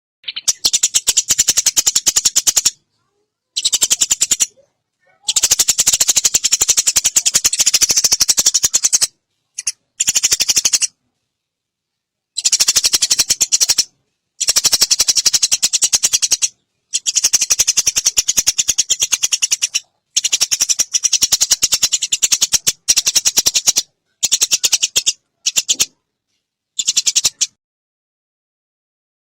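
Eurasian tree sparrow giving long, fast rattling chatters in about a dozen bouts of one to four seconds, each cut off abruptly by a short silence.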